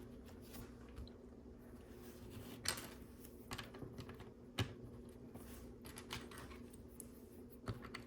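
Plastic LEGO pieces handled and fitted together: scattered sharp clicks, a few louder ones spread through, over a faint steady hum.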